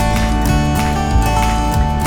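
Background music: strummed acoustic guitar over a bass line with a steady beat.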